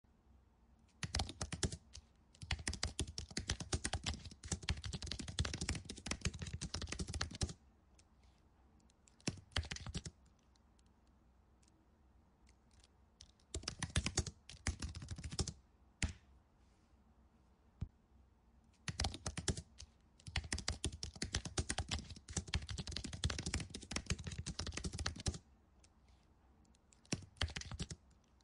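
Computer keyboard typing in bursts of rapid key clicks. Two long runs of about six seconds each are broken up by a few short runs and pauses.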